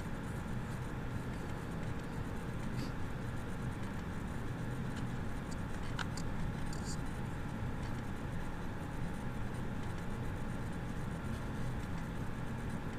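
Steady room tone from an open microphone: a low hum and hiss, with a few faint clicks about a third and halfway through.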